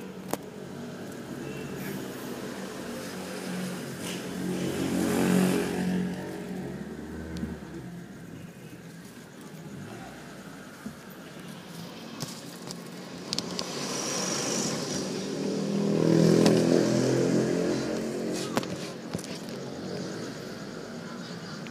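Motor vehicle engines on a road at night. The sound swells to a peak about five seconds in and again about sixteen seconds in, then fades each time.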